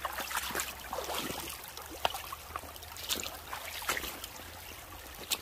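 Shallow, stony stream trickling and gurgling over pebbles, with small irregular splashes.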